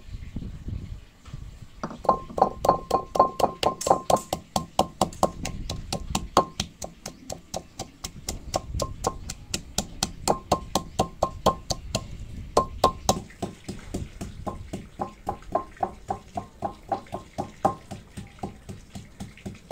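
Wooden pestle pounding garlic cloves and ginger in a clay mortar. It makes a quick run of knocks, about four or five a second, each with a ringing tone from the clay bowl. The pounding starts about two seconds in and pauses briefly a few times.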